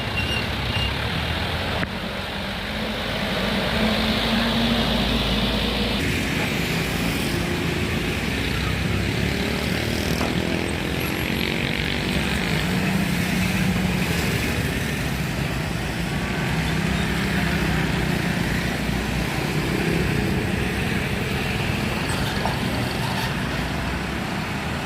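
Steady road traffic at a level crossing: engines of trucks and cars running continuously as they pass, their notes shifting up and down.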